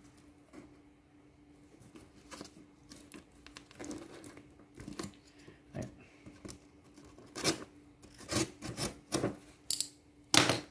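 Knife slitting packing tape and cardboard on a heavily taped box, with tape and flaps being torn. Quiet scraping at first, then a run of loud, short rips over the last few seconds, the loudest near the end.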